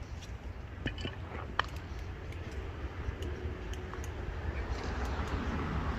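Outdoor background noise: a steady low rumble with a few scattered light clicks and ticks.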